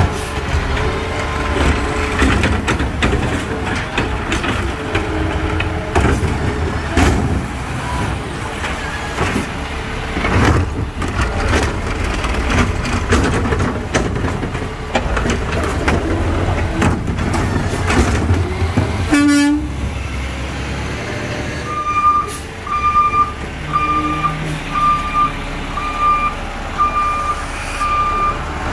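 Diesel engine of a Peterbilt automated side-loader garbage truck running while its hydraulic arm lifts and dumps a wheeled trash cart, with repeated knocks and bangs of the cart. About two-thirds of the way in comes a short sharp burst, and then the truck's reversing alarm beeps steadily about once a second.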